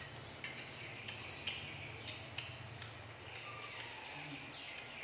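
Chewing with several sharp, irregular mouth clicks and smacks, mostly in the first few seconds. Under it there are faint, short falling bird chirps and a low steady hum.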